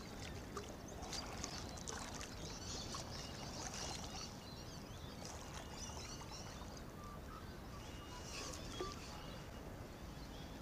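Faint splashing and sloshing of water as a hooked carp thrashes at the surface near the bank, over a steady low rumble, with birds chirping in the background.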